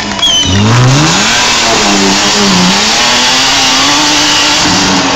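Off-road buggy's engine revving hard as it churns through a mud-filled ditch. The pitch climbs sharply about half a second in and then rises and falls, over a steady rushing noise.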